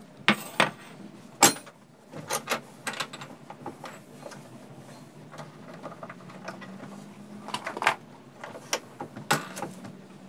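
Sharp knocks and clatters of kitchen items being handled and set down while a stainless steel gas hob is wiped clean, about a dozen irregular strokes, loudest near the start.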